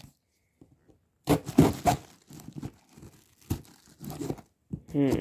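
Packing tape being ripped off a cardboard shipping box in several short tearing pulls, the loudest about a second in.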